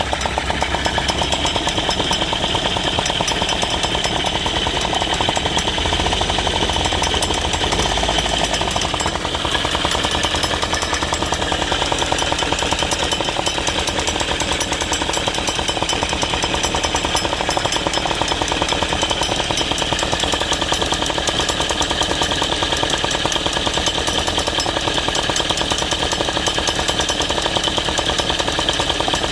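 Aprilia SR50 scooter's Minarelli 50cc two-stroke engine running steadily with a fast even buzz, making an odd noise that the owner cannot identify.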